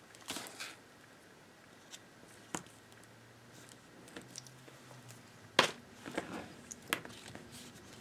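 Quiet handling of cardstock and a roll of double-sided tape: a brief rustle just after the start, then scattered taps and clicks, the sharpest about five and a half seconds in.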